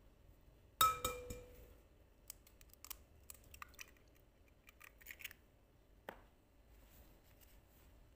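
An egg knocked once against the rim of a glass mixing bowl, a sharp ringing clink, followed by small crackles and clicks as the eggshell is pried open by hand.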